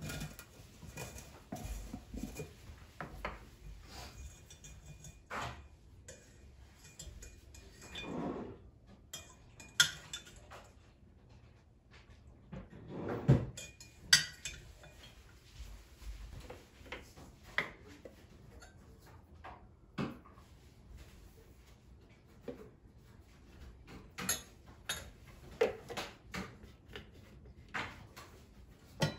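Kitchenware clatter: scattered clinks, taps and knocks of glass jars, a jar lid, a spoon and a small glass bowl on a counter and wooden cutting board. There are two longer rustling scrapes about 8 and 13 seconds in.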